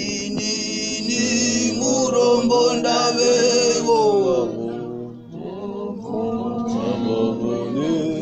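Shona gospel song sung by a group led by male voices in harmony, with long held notes; the singing dips briefly about halfway through, then picks up again.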